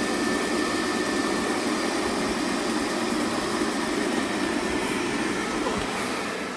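Xiaomi Mijia Robot Vacuum Mop-G1 running: a steady motor and suction hum with a faint high whine, fading near the end.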